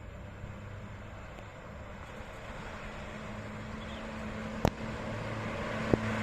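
A bus approaching, its engine hum and road noise growing steadily louder. Two sharp clicks come about four and a half seconds and six seconds in.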